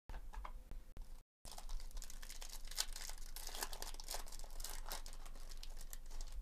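Foil wrapper of a Topps Chrome baseball card pack being torn open and crinkled by hand. The crackle sets in properly about a second and a half in and keeps going as a dense run of small crinkly clicks.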